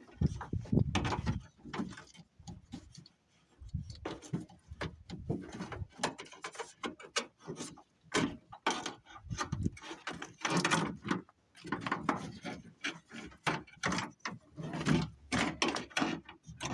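Hands pushing a replacement door wiring harness and its plastic clips into a Ford F-150 door: irregular clicks, rattles and knocks, with a few heavier thumps.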